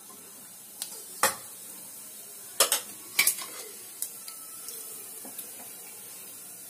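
Mustard and cumin seeds frying in hot oil in an aluminium pot for a tempering: a soft, steady sizzle with about seven sharp clicks scattered through the first four seconds.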